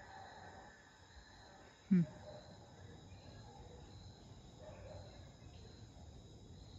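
Crickets chirping in a steady, even pulse, about two chirps a second, faint under a low background hum. About two seconds in there is one short, loud, low thud.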